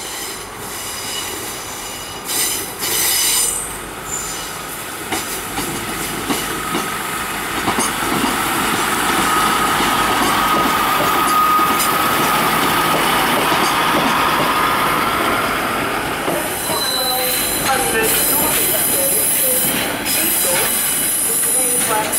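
Diesel multiple-unit passenger trains running slowly over the station pointwork, wheels squealing against the rails: a steady squeal holds through the middle, then short squeals and screeches come near the end.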